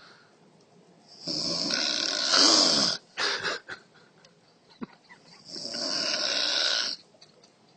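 A woman snoring in her sleep: two long, loud snores, the first starting about a second in and the second about five and a half seconds in, with a few short sounds between them.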